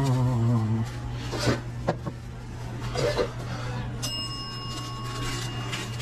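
Restaurant kitchen sounds over a steady low hum: a brief voice at the start, a few sharp knocks, and about four seconds in a metal object struck and ringing for nearly two seconds.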